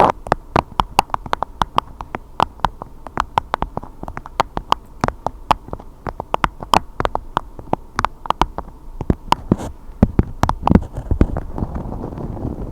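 A rapid, irregular series of sharp taps, several a second, without a pause.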